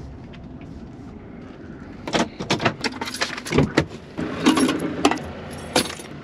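Keys jangling and sharp clicks and rattles of handling inside a pickup truck cab, a busy run of them from about two seconds in, over a low steady hum.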